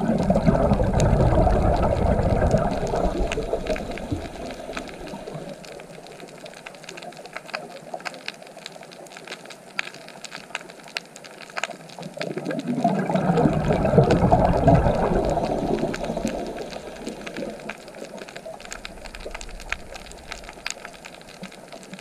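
Underwater recording: a scuba diver's exhaled bubbles rush and gurgle twice, about twelve seconds apart, each lasting a few seconds, over a steady faint crackle of clicks.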